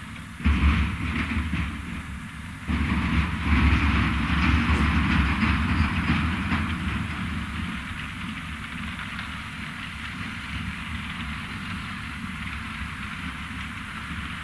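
ROPA Maus 5 sugar beet loader at work: a mass of beets rattling through its cleaning rollers and conveyor and tumbling into a truck trailer, over the machine's steady running. The rattle and rumble start suddenly about half a second in, ease off briefly near two seconds, surge again, then slowly die down.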